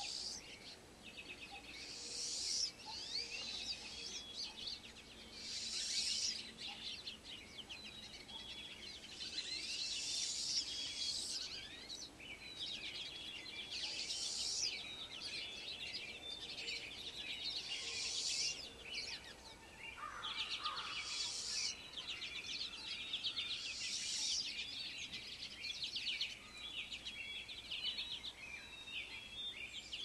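Dawn chorus of songbirds: many birds chirping at once without a break, with one louder, higher song coming back about every four seconds.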